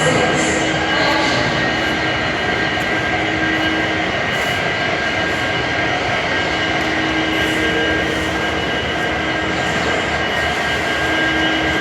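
Steady running noise of a train in motion, an even roar with a few constant whining tones and no breaks.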